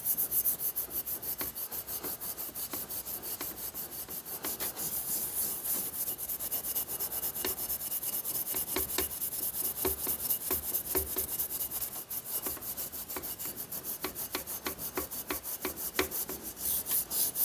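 Ultra-fine Scotch-Brite pad scrubbing a wet, rusty steel axe head in quick, even back-and-forth strokes, a scratchy rub on each pass, taking off the surface rust.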